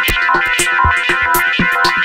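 Electronic background music with a steady drum-machine beat and synthesizer chords.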